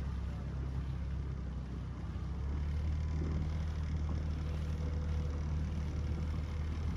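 A small boat's engine running steadily, with a low hum that gets a little louder about two and a half seconds in.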